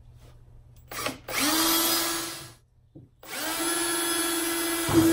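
Cordless drill boring clearance holes through the plastic of a sled: the motor whines steadily in two runs, a short one starting just after a second in and a longer one from about three seconds in, each stopping sharply.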